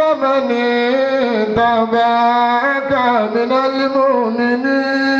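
A single voice singing in long, held notes that slide from pitch to pitch, in the melismatic style of praise singing or chanted recitation.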